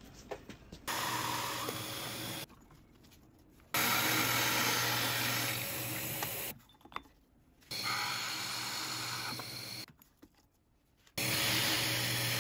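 Drill press running a large hole saw down through a wooden board. It comes in four separate runs of a few seconds each, with short quieter gaps between them.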